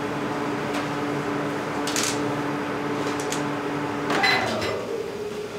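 Steady mechanical hum of a foundry crucible furnace, with scattered short metal clinks from tongs and rods. A little past four seconds there is a louder metallic clank with a brief ringing tone, and after it the hum carries on at a slightly different pitch.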